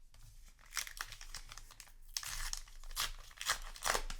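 Plastic trading-card booster pack wrapper crinkling and being torn open, a run of sharp crackles with a longer rip about halfway through.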